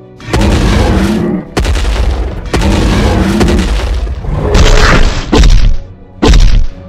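Dramatic background music with a series of dubbed heavy boom and smash sound effects for a giant monster's punches, the two loudest booms near the end.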